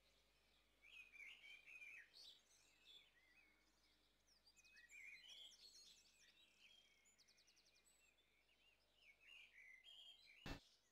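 Near silence with faint, scattered chirps and twitters of small birds, and a single short click near the end.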